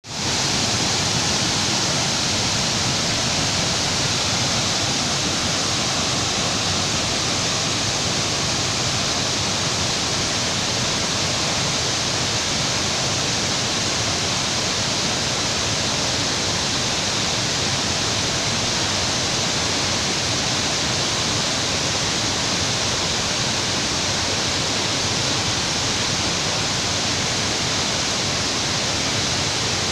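Waterfall, its falling water making a loud, steady rush that does not change.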